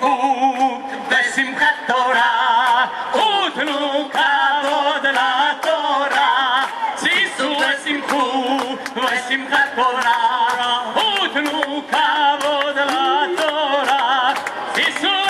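A group of voices singing a lively Hebrew song together, unaccompanied, with a steady sharp beat kept under it.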